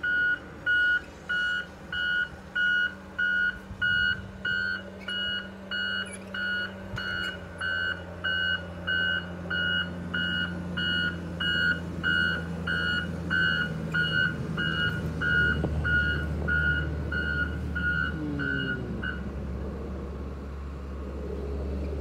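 John Deere 524K wheel loader's reversing alarm beeping steadily, about two beeps a second, over its diesel engine running. The beeping stops near the end, and the engine gets louder in the second half as the loader works the snow.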